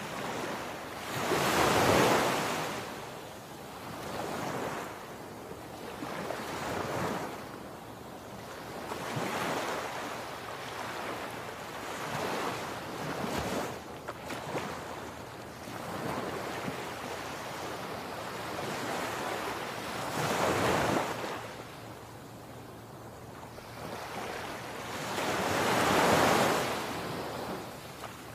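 Sea surf breaking on a sandy beach, rising and falling every few seconds as each wave comes in. The biggest surges come about two seconds in and near the end.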